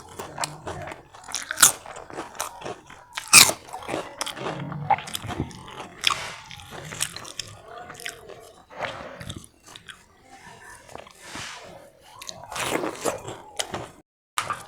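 A person biting and chewing crunchy food close to the microphone, with repeated sharp crunches and wet chewing. The loudest crunch comes about three and a half seconds in.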